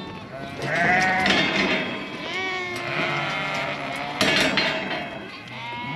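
Several sheep bleating over one another, overlapping calls of ewes and lambs being separated at weaning.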